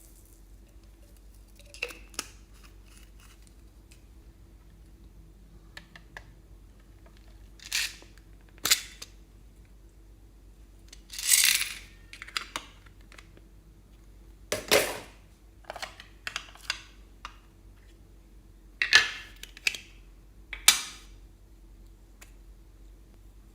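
Slime being handled and mixed by hand: scattered short sticky crackles, pops and squishes, a dozen or so, a few of them longer.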